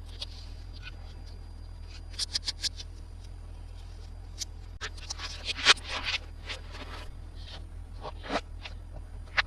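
Hands handling plastic toys and packaging: a quick run of four light clicks about two seconds in, then scraping and rustling with scattered clicks through the second half, over a faint low hum.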